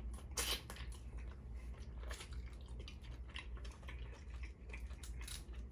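Close-miked chewing of Dungeness crab meat, with scattered soft wet clicks and smacks of the mouth.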